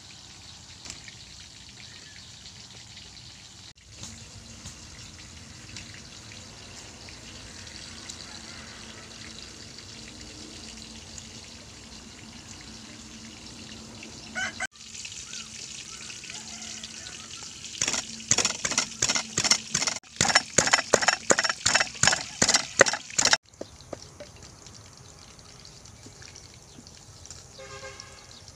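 Wooden pestle pounding in a clay mortar: a run of sharp, evenly spaced strokes, about three a second for some five seconds, in the second half. Before that, a faint steady sizzle from food frying in the wok.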